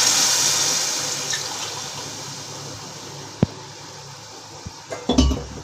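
Water being poured from a glass into a wide metal pot of rice and vegetables, a splashing pour that tapers off over the first few seconds. A single sharp click comes midway, and a few dull knocks come near the end.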